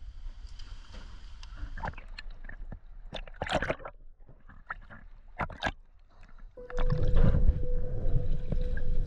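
Sea water gurgling and sloshing as heard by a camera underwater, with scattered sharp bubble pops and crackles. About two-thirds of the way through it turns into a louder, steady rushing, with one steady tone running under it.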